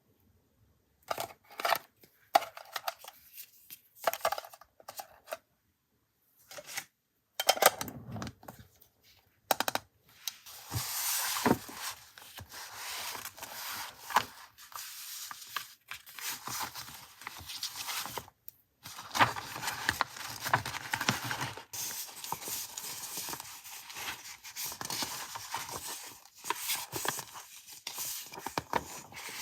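Paper being handled for a junk-journal collage: rustling and crinkling with scattered taps and clicks. A few short, separate sounds come first, then the rustling runs almost continuously from about ten seconds in.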